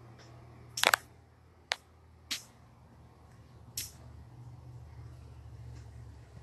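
Several short, sharp clicks at uneven intervals: a quick double click about a second in, then three single clicks over the next three seconds. A steady low hum runs underneath.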